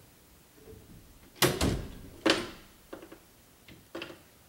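Closet door opening: two loud knocks or bangs about a second and a half and two and a quarter seconds in, then a few lighter clicks and taps.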